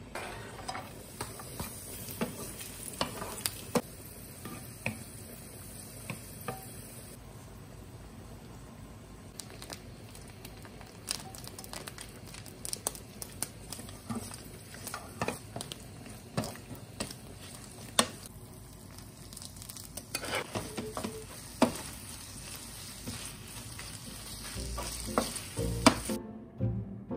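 Takana (pickled mustard greens) frying in oil in a nonstick frying pan and stirred with a wooden spatula: a steady sizzle with frequent light taps and scrapes of the spatula on the pan.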